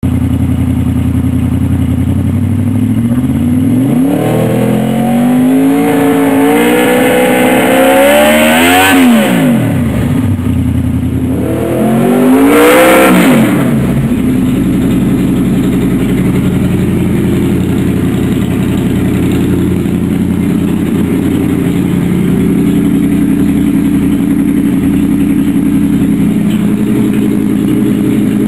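Honda VFR800 VTEC's V4 engine running with no exhaust fitted. It idles, then is revved slowly upward for several seconds and drops back sharply. A second, shorter rev follows a few seconds later before it settles back to an even idle.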